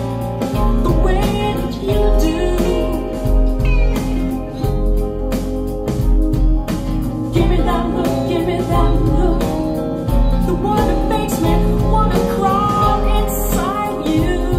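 A song with a woman singing over guitar and band, played back through CSS 2TD-X speakers driven by an SMSL AL200 Class D integrated amplifier.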